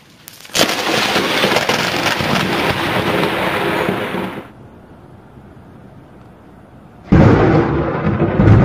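Thunder from lightning strikes: a loud crack about half a second in that hisses on for some four seconds and cuts off suddenly, then a second, deeper and heavier clap near the end.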